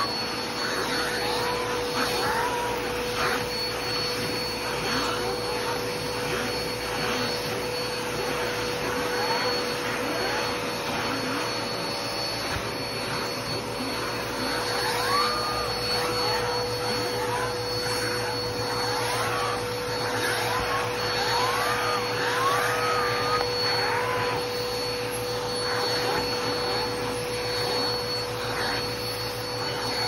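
Vacuum cleaner running steadily with its hose and clear upholstery nozzle worked over fabric sofa cushions, a constant whirring hum with short rising-and-falling whistles now and then.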